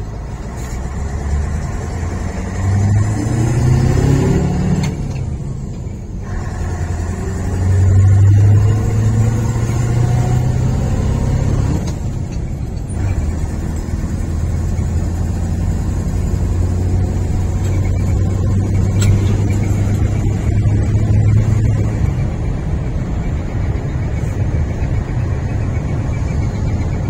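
Scania 143's 14-litre V8 diesel accelerating hard, heard from inside the cab. The engine note climbs, drops briefly at gear changes about five and twelve seconds in, then pulls steadily in the top gear.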